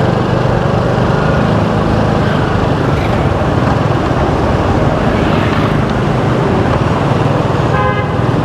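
Motorbike riding in city traffic: a steady engine hum under loud, even road and rushing air noise. A brief pitched sound comes near the end.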